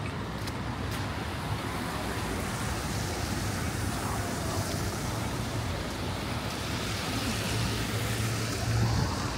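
Steady city street noise with a low engine hum running under it, a little stronger near the end.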